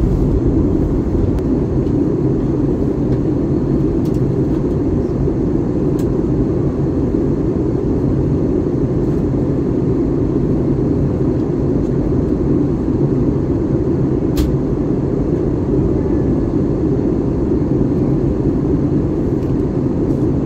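Airliner cabin noise inside an Airbus A321neo on approach: a steady, dense rumble of airflow and engines. A single sharp click about fourteen seconds in.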